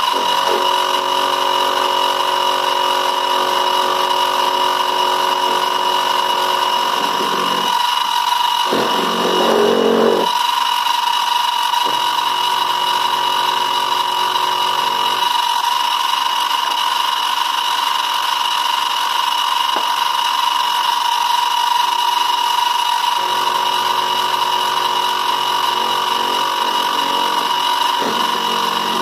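Benchtop milling machine running with a steady high whine while its end mill cuts a slot in a die-cast metal model locomotive frame. The cutting noise under the whine changes as the cut goes, loudest about a third of the way in and again near the end.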